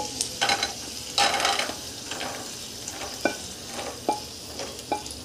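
Fried peanuts scraped out of a pan onto a steel plate: a rattling, scraping pour in the first two seconds, then several sharp ringing metal taps on the plate, over a faint sizzle of hot oil.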